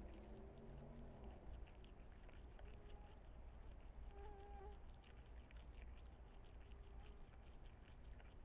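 Faint chewing and smacking clicks of an opossum eating boneless chicken close to the microphone, over a low steady hum and hiss.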